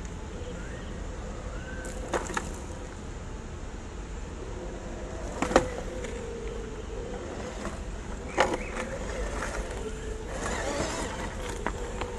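Small electric motor and gearbox of a WPL C24 1/12-scale RC crawler whining as it crawls over riverbed stones, the pitch wavering with the throttle. Sharp knocks as it climbs over rocks come about two, five and a half, and eight and a half seconds in.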